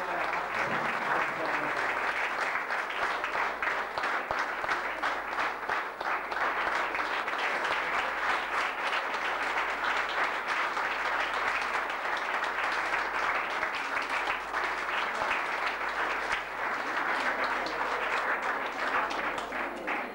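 Steady applause from a small audience, many hands clapping.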